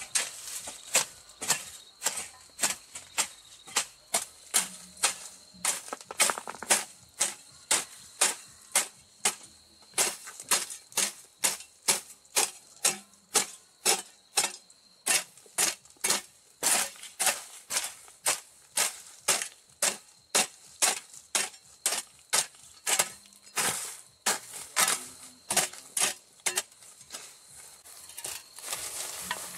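Repeated sharp strikes in a steady rhythm of about two a second, with a couple of short breaks, stopping a few seconds before the end. A faint steady high tone sits underneath.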